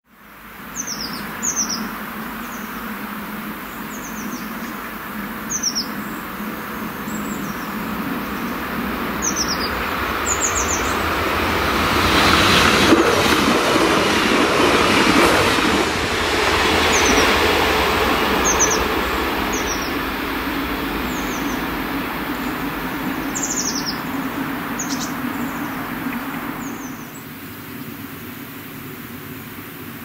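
Songbirds chirping repeatedly over the rumble of a passing train that swells, is loudest about halfway through, and fades away near the end.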